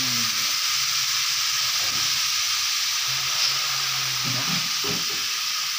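Chopped golden apple snail meat frying in hot oil in an aluminium wok: a steady sizzle.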